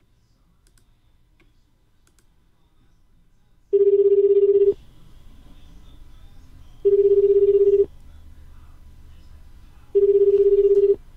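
A few faint clicks, then the ringback tone of an outgoing call placed through the FireRTC browser phone: a steady beep about a second long, heard three times about three seconds apart, starting nearly four seconds in.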